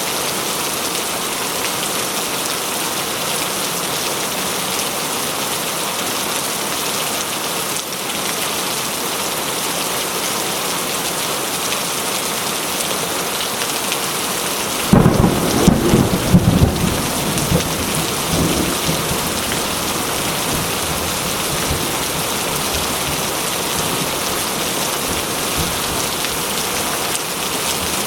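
Steady heavy rain hissing throughout. About halfway through comes a sudden loud clap of thunder that rumbles on for three or four seconds before the rain alone remains.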